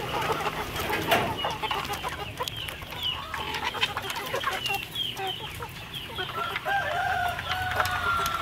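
A flock of young chickens clucking and peeping while feeding at a trough, with many short calls overlapping. There is a sharp knock about a second in, and a longer drawn-out call near the end.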